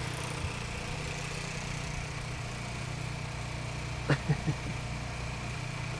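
A steady low hum, like a motor running, with three short sounds close together about four seconds in.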